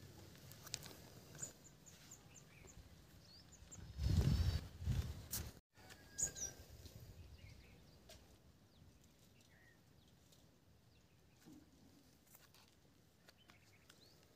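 Quiet outdoor ambience with scattered faint bird chirps and a brief muffled rumble about four seconds in; the last several seconds are nearly silent.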